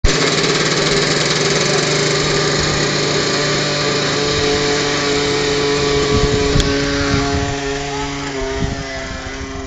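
RC model helicopter's motor and rotor running with a steady, high whine that drops slightly in pitch and fades a little over the last few seconds.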